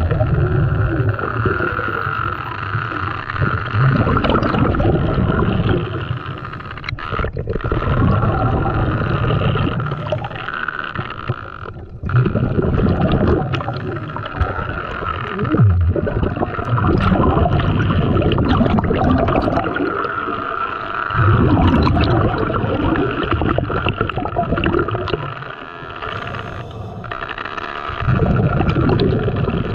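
Muffled underwater water noise on an underwater camera, with gurgling and sloshing that swell and fade every few seconds, and a few sharp clicks.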